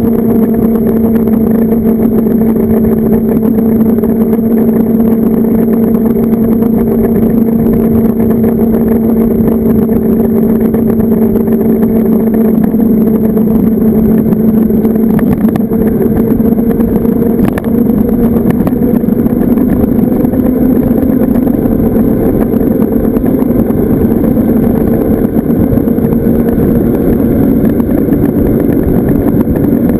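Zero FX electric motorcycle on the move: a steady motor whine that rises slightly in pitch near the end, over a loud rush of wind on the microphone.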